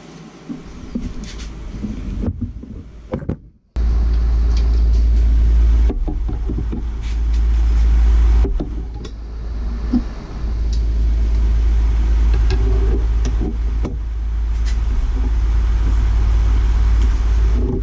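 Air from an electric desk fan buffeting the microphone, a loud steady low rumble that starts abruptly about four seconds in, with scattered metallic clicks and knocks from slip-joint pliers working on the end of a hydraulic ram rod. Before the rumble there are only light handling sounds of a rag wiping the rod.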